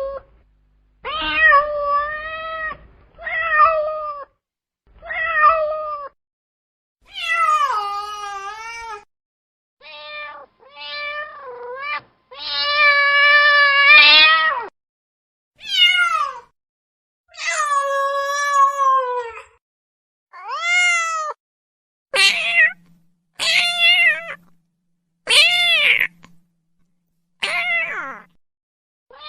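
A string of about fifteen domestic cat meows, one after another with dead silence between them, each rising and falling in pitch, with one long drawn-out meow about halfway through.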